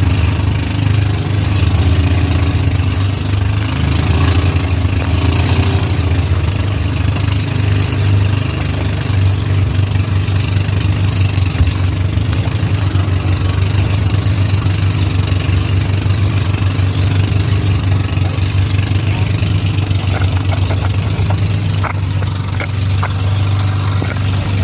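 Outrigger boat's engine running steadily under way, a low pulsing drone, over wind and water rushing and splashing against the hull.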